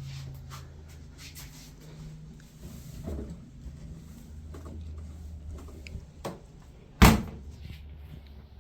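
Laundry being loaded into a front-loading washing machine: quiet handling knocks and rustles, then one sharp bang about seven seconds in.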